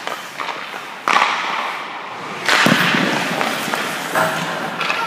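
Hockey puck shooting at a goalie on an ice rink: sharp cracks of stick on puck and puck off the goalie's pads, mixed with skate blades scraping the ice. There are three sharp hits, about a second in, at two and a half seconds (the loudest) and near the end, each echoing briefly.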